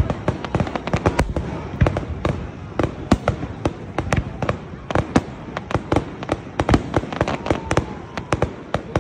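Fireworks display: aerial shells bursting in rapid, irregular succession, several bangs and cracks a second, over a continuous crackle and rumble.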